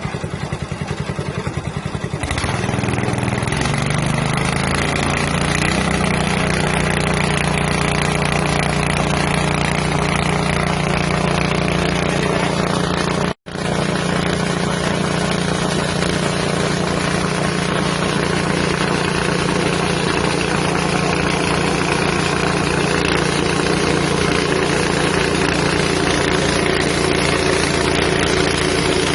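Small 6.5 hp engine driving a rice huller, just started: it pulses slowly at first, speeds up over the next few seconds, then runs steadily with the huller's mechanical noise. There is a momentary break in the sound about 13 seconds in.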